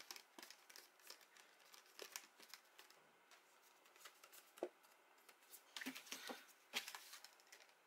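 Mostly near silence, broken by faint rustles and light taps of cardstock being handled, folded and set down on a work surface, a few a little louder near the end.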